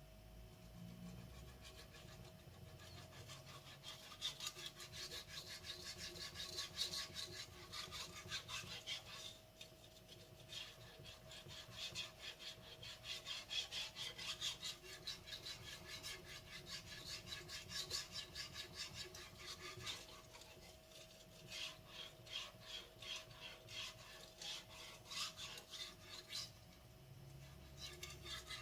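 Blue carbon-steel gyuto blade stroked back and forth on a wet Naniwa whetstone: quick, rhythmic steel-on-stone scraping strokes, with short pauses about ten and twenty seconds in and again near the end, over a faint steady hum.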